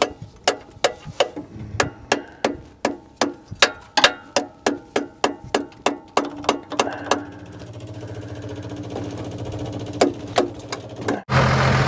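12-volt electric fuel pump ticking steadily, about three clicks a second, as it pumps fuel to the carburetor. The ticking stops about seven seconds in, leaving a faint steady hum, then a few more clicks come near the end.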